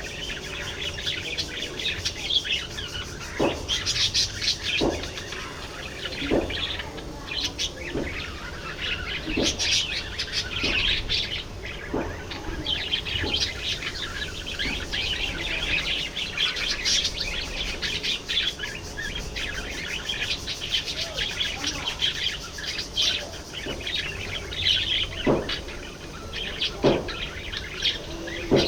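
A flock of budgerigars chattering and chirping continuously in a busy overlapping warble, with a few sharp clicks mixed in.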